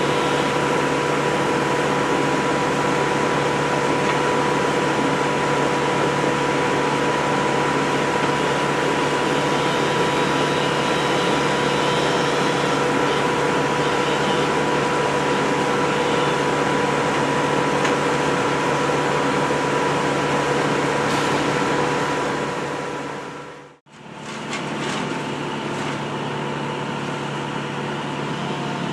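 A steadily running engine drone that holds one pitch throughout. It breaks off abruptly about 24 seconds in and picks up again as a similar, slightly quieter drone.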